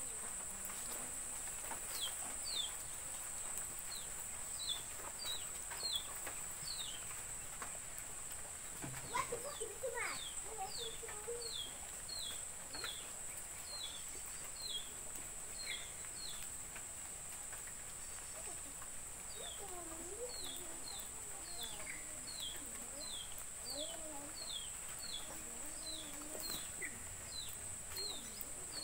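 Garden ambience: a steady high insect buzz throughout, with a bird repeating short falling chirps at about two a second in long runs. A few faint lower animal calls come in around the middle.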